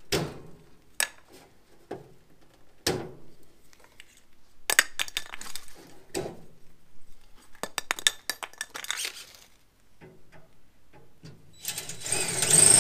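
Metal parts clinking, knocking and scraping as barbecue burners and their bolts are handled and tightened inside the steel tub. Near the end a cordless drill starts and runs steadily.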